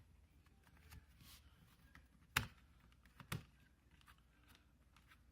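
Light handling clicks from the plastic Nest thermostat base plate on the wall: two sharp clicks about a second apart a little past the middle, among faint taps in a quiet room.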